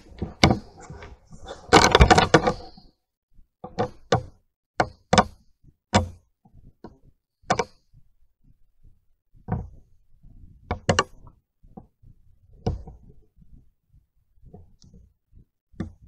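A series of irregular sharp knocks and clicks, with a louder rustling burst about two seconds in.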